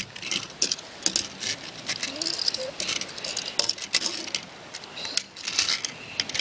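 Toy train being pushed along its track: irregular small clicks and rattles of the wheels and plastic body.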